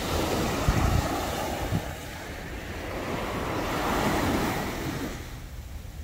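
Small waves breaking and washing up a sandy beach, in two surges about three seconds apart, with wind buffeting the microphone in low thumps.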